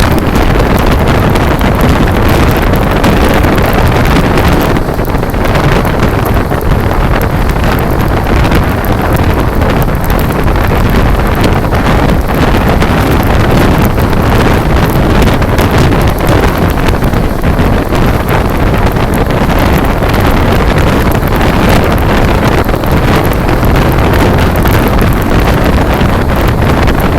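Steady loud rush of wind buffeting the microphone over the low rumble of a passenger train running at speed, heard from on board.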